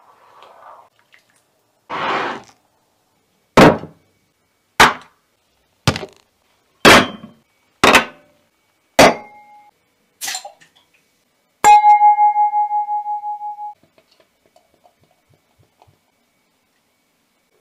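A short rustle, then a series of seven sharp metallic knocks about a second apart, then one louder clang that rings on with a pulsing tone for about two seconds. The knocks come from a heavy metal axe-shaped tool striking the table.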